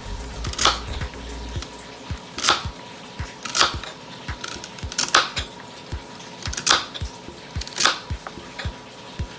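Kitchen knife slicing through a bundle of celery stalks onto a plastic cutting board. About six sharp chops, roughly one every second or so, with faint knife taps between them.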